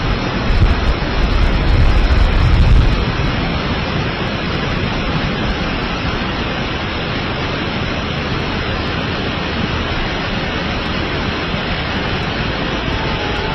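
Heavy rain falling: a steady, dense hiss. A heavier low rumble runs through the first three seconds.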